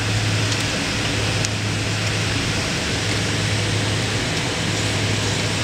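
Steady jet airliner engine and airflow noise heard inside the passenger cabin, with a constant low hum underneath, as the plane moves down the runway at the start of its take-off.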